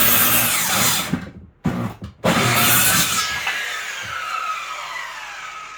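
Circular saw cutting through wood wall framing: the saw stops about a second in, is triggered again in short starts, cuts for another second, then is released and the blade winds down with a falling whine.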